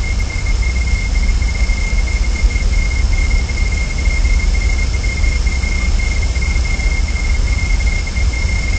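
Steady background noise from a wildlife nest camera's microphone: a constant low rumble and hiss with a thin, unbroken high whine over it, and no distinct events.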